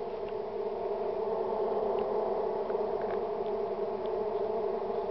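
Manduri stingless bees (Melipona) buzzing: a steady, unbroken hum.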